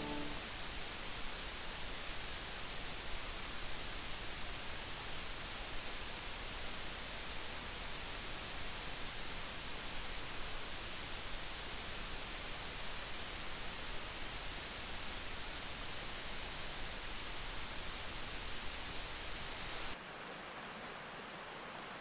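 Forest ambience picked up close on a field recorder: a steady, even hiss with no distinct calls or knocks, dropping to a quieter hiss about 20 seconds in.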